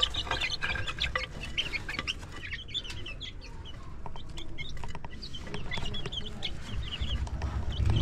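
A small flock of domestic hens clucking, with many short high calls, as they crowd round a bowl of chopped spinach and feed.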